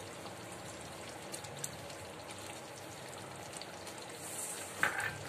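Potato-and-makhana curry gravy simmering in a steel kadhai, a steady soft bubbling and crackling, with a short knock near the end.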